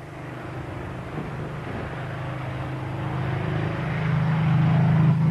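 Piston aero engine of a float-equipped racing seaplane droning steadily as it flies low over water, growing louder toward the end as it closes in.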